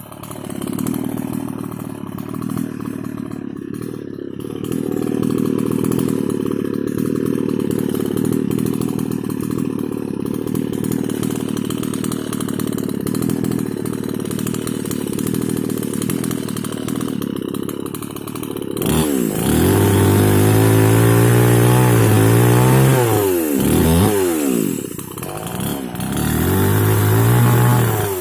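Small two-stroke mini chainsaw running at a steady speed. About two-thirds of the way through it is throttled up hard several times, the engine pitch rising and falling between full revs and near idle.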